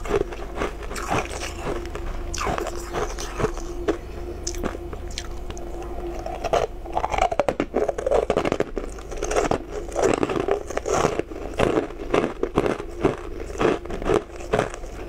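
Close-up biting and chewing of mouthfuls of fluffy, snow-like crushed ice, with irregular crisp crunches throughout and a dense run of crackling about seven to eight seconds in.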